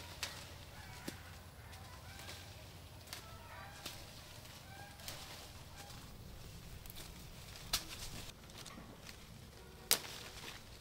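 Rambutan fruit clusters snapped off the tree by hand: scattered sharp snaps and leaf rustles, the loudest about ten seconds in. Birds call faintly in the background.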